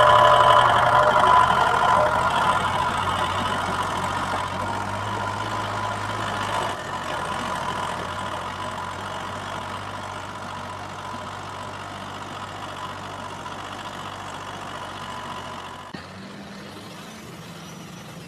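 Small motor of a model tractor running steadily with a whirring hum. It is loudest at first, fades gradually, and drops off sharply about sixteen seconds in.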